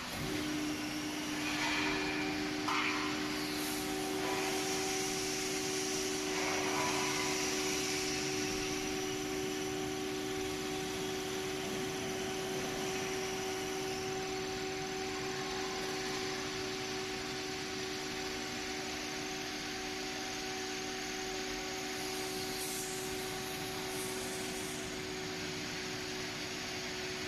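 Hydraulic lifting unit of a continuous belt fryer running as it moves the belt frame. It is a steady motor hum with two low held tones that set in within the first second, a fainter higher tone above them, and a hiss underneath.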